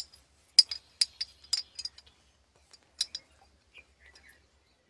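A thin iron rod clinking against the inside of a glass bottle: a run of light, irregular taps in the first two seconds and two more about three seconds in.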